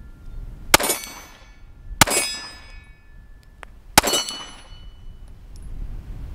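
Three 9mm pistol shots from a Glock 43X, spaced a second or two apart. Each is followed by the short ring of a steel target being hit.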